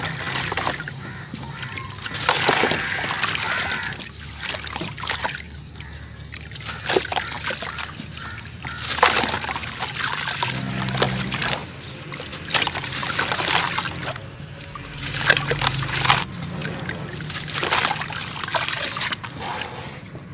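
Charcoal-and-sand blocks crumbling apart in water: swells of wet crackling and sloshing every two to three seconds.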